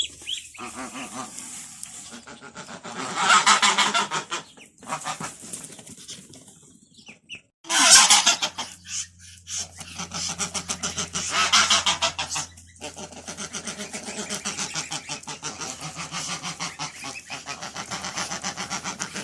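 Domestic geese honking in loud bouts, about three, eight and eleven seconds in, over the continuous calling of a mixed flock of geese and ducks. A steady low hum comes in about halfway through.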